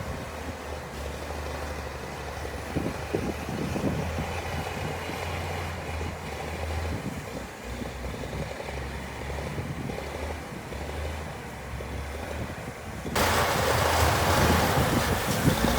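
Heavy diesel earthmoving machinery running: a steady low engine drone with scattered knocks and clanks. Near the end it turns abruptly louder and harsher.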